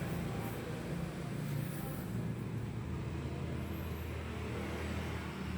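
A steady low motor hum, like an engine idling, with two faint high chirps about two and four seconds in.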